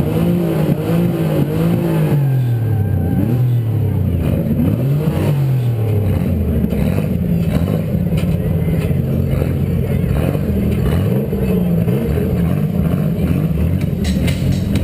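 Small demolition-derby car's engine revving up and falling back over and over as it accelerates and backs off, heard from a camera on the car's roof.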